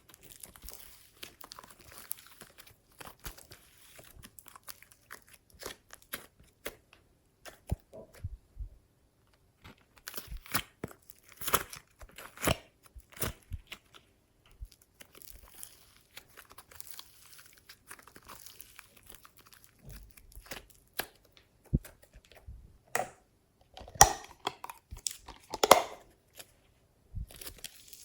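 Glossy slime being squished, stretched and folded by hand, giving irregular sticky crackles and pops, with a louder run of pops near the end.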